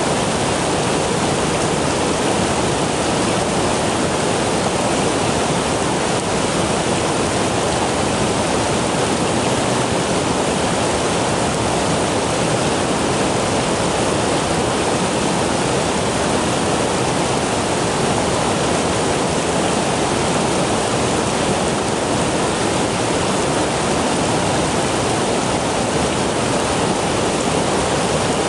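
Flowing water of a river fork: a steady, even rush with no breaks or changes.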